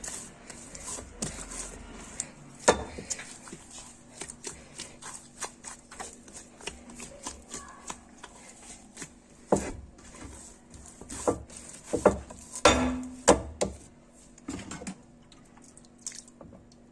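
Wet yeast dough being kneaded by hand: irregular squelching slaps and rubbing, with a run of louder slaps about three quarters of the way through.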